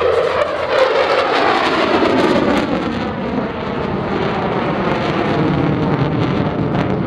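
Lockheed Martin F-35A's single Pratt & Whitney F135 turbofan, loud and steady jet noise as the fighter flies a loop overhead, its tone slowly shifting as it moves.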